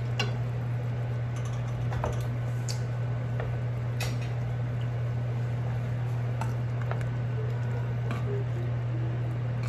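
A wooden spatula stirs a skillet of simmering cream sauce, and pasta boils in a pot beside it, with scattered clicks and taps of utensils against the pans. A steady low hum runs underneath.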